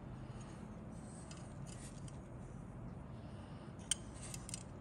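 Clear plastic model-kit parts handled and turned over in the fingers, rubbing lightly, with one sharp click about four seconds in and a few smaller clicks just after.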